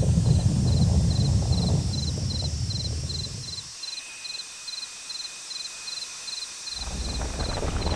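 Cricket chirping: short high chirps of a few quick pulses each, about two and a half a second, evenly spaced. Under it a deep rumble fades away about three and a half seconds in and swells back near the end.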